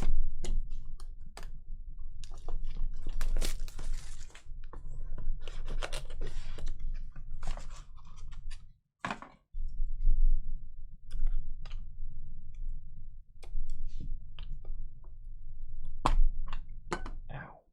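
A cardboard trading-card hobby box being torn open and handled: crackling and tearing of cardboard and packaging with many sharp clicks and knocks, over a steady low hum.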